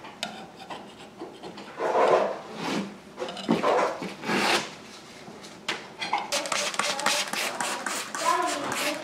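Wet wallpaper being rubbed and peeled off a wall by a gloved hand: a few rasping, tearing swells, then a denser crackling stretch over the last few seconds.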